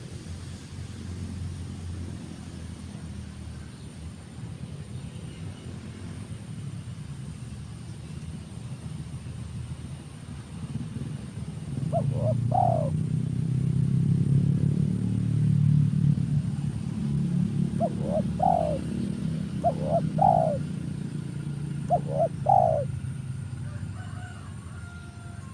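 Spotted dove cooing: one short group of rising coos about halfway through, then three more groups near the end. A steady low rumble runs underneath.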